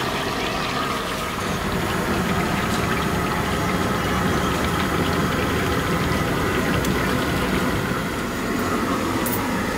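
Besan-battered potato vadas deep-frying in a kadhai of hot oil: a steady sizzle and bubbling over a low, even rumble.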